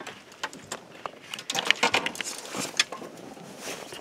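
Handling noise of gear on a boat deck: a run of clicks, knocks and rustles as bags and clothing are moved, busiest in the middle.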